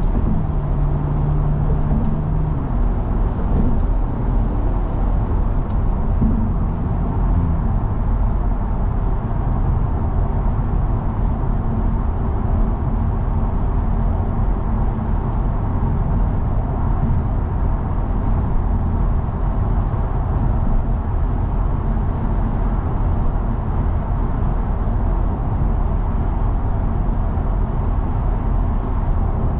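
A BMW 340i's decatted, tuned B58 turbocharged straight-six engine running while the car is driven, with steady road noise. A low, even engine tone stands out in the first few seconds, then an even rumble.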